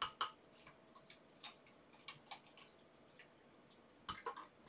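Irregular light clicks and taps of small parts being handled at a workbench, with a quick cluster near the end.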